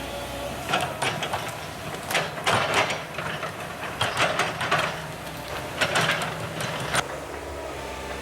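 Hydraulic excavator working: its diesel engine runs steadily under load while metal clanks and creaks sound irregularly, several times a second at the busiest moments.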